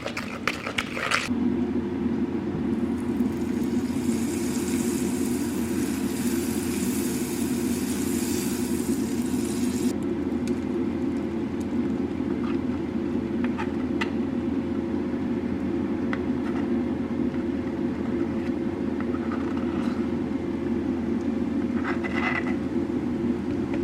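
Kitchen appliance fan switched on about a second in and running with a steady whirring hum. A higher hiss joins it for several seconds and stops suddenly, with a few light clicks.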